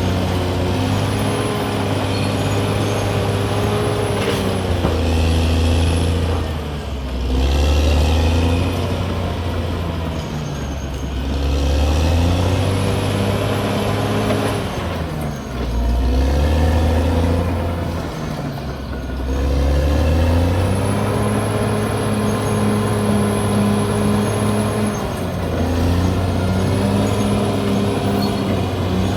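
Caterpillar D6R XL bulldozer's diesel engine running under working load. Its note sags and recovers several times as the load comes on and eases off.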